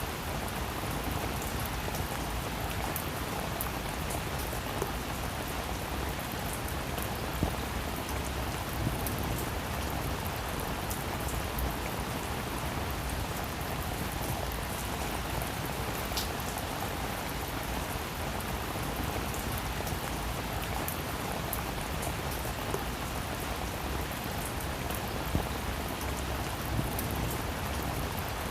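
Steady rain falling on a roof, with occasional louder single drops ticking through it.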